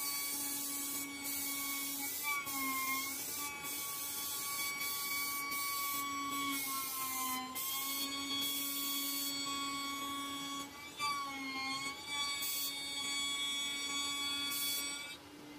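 CNC router spindle milling closed-cell polyethylene foam (Ethafoam) with a small end mill: a steady high motor whine whose pitch dips briefly several times. Over it runs a high hiss that breaks off for short moments.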